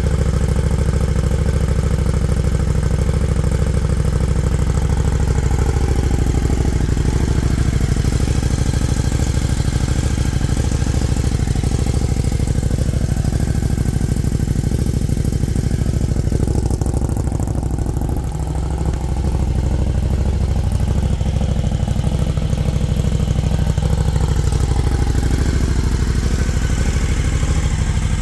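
KTM 1290 Super Duke GT's V-twin idling steadily through its cat-deleted exhaust, warming up after a cold start.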